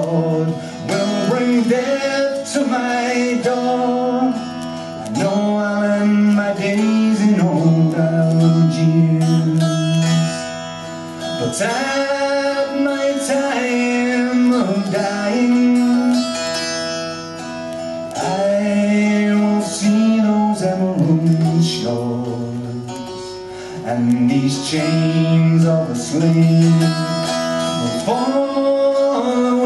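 Appalachian mountain dulcimer played with a steady drone under a man's wordless singing, long held notes that slide from one pitch to the next.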